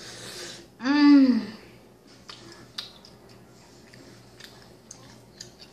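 A person chewing a mouthful of chicken nugget, with small wet clicks and smacks of the mouth. About a second in comes one short hummed vocal sound that rises and then falls in pitch.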